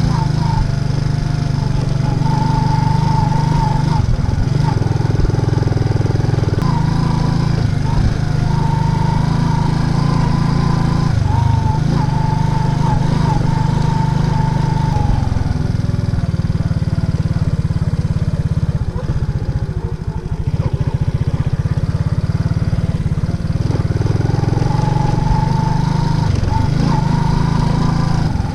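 Racer Alpha RC50 moped's small single-cylinder four-stroke engine running under way, with wind noise. It makes a steady low drone with a whine on top. For several seconds past the middle the whine drops away and the sound eases, as if off the throttle, then the whine comes back near the end.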